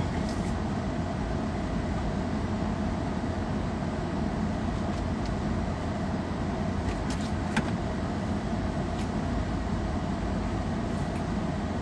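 Steady low hum and hiss inside a car cabin with the engine running. A few light clicks about seven seconds in come from a plastic water bottle being handled.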